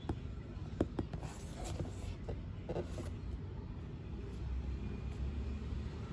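A few light taps and scrapes as a cardboard headset box is handled and turned over in the hands, mostly in the first three seconds, over a steady low rumble.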